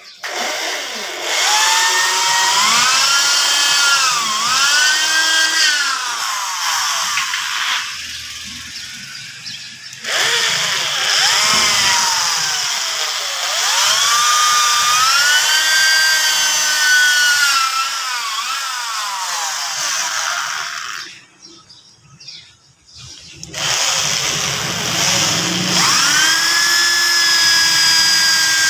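Corded electric drill boring into a wooden plug in the end of a metal tube leg, the motor whine rising and falling in pitch as the bit bites and frees. It stops for a couple of seconds about three-quarters of the way through, then runs again.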